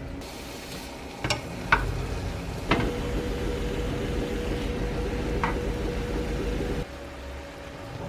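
Thin meat slices sizzling in a nonstick frying pan, with a few sharp clicks of tongs against the pan. The sizzle cuts off suddenly near the end.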